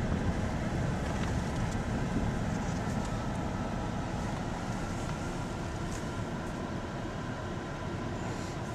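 Car's engine and road noise heard from inside the cabin as it drives slowly, a steady low rumble that eases gradually quieter.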